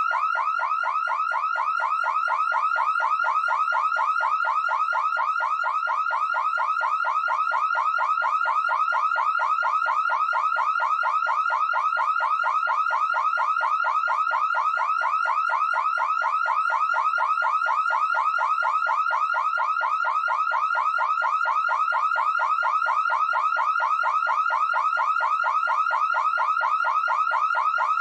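Car alarm going off: a loud electronic siren repeating the same short pitch sweep several times a second, steady and unchanging throughout.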